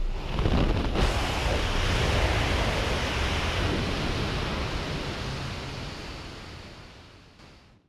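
Loud rush of wind and propeller-plane engine noise buffeting the camera microphone at the open door of a jump plane in flight, fading away over the last few seconds.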